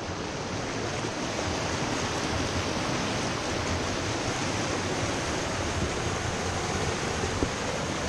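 Creek water rushing over a rock ledge in a small rapid, close to the microphone: a steady, loud rush of white water. There is one short click near the end.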